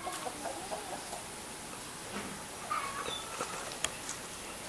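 A hen clucking quietly: a quick run of short clucks in the first second, then a few scattered faint calls, with a sharp click just before the end.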